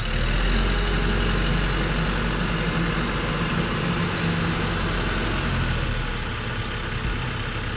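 TYM 574 tractor's diesel engine running steadily, easing off a little about six seconds in.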